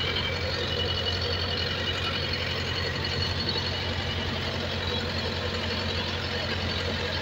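YTO EF604 tractor's diesel engine running steadily at a light 1,400–1,500 rpm while driving a thresher.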